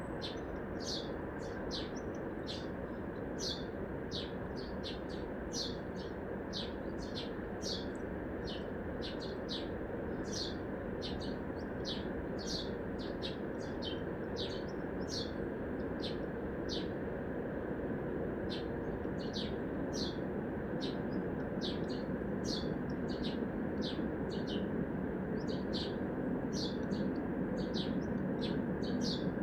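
A small bird giving short, shrill chirps over and over, about two a second, over the steady hum of big-city traffic.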